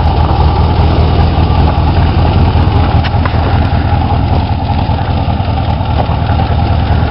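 A Chevy 6.0L Vortec V8 idling steadily through a Flowmaster exhaust, just started with a heavy dose of SeaFoam treatment in it.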